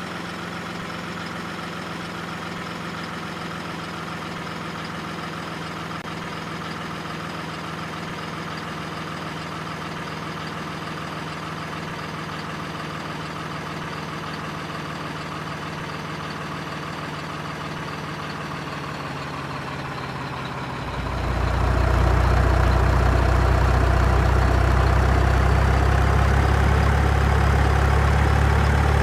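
Truck engine idling steadily, then turning much louder and deeper about three-quarters of the way through, as if revved up or pulling away.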